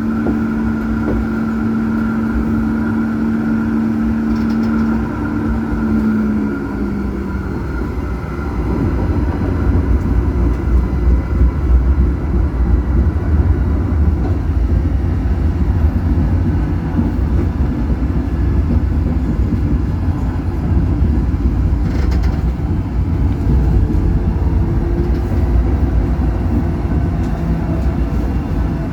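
Electric tram running on its rails, heard from the driver's cab. A steady electric whine drops in pitch and fades about six to seven seconds in, and a continuous low rumble of the wheels on the track follows.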